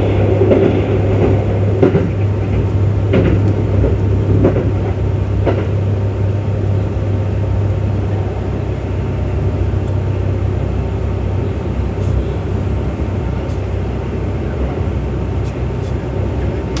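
Kintetsu Urban Liner Plus limited express train running at speed, heard inside the passenger cabin: a steady running rumble with a low hum, and a few sharp knocks in the first six seconds before it settles into an even run.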